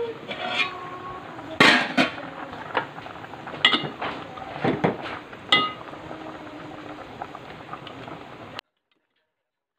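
A metal spoon clanking against a metal cooking pot and its plate lid while stirring boiling meat and vegetables: about seven ringing clinks at uneven intervals over a steady hiss. The sound cuts off abruptly near the end.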